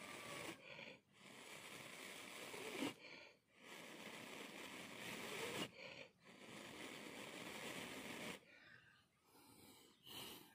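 A person blowing long, steady breaths on a small glowing ember held in the palm to keep it alight, about four blows in a row, each lasting about two seconds with a short pause for breath between them.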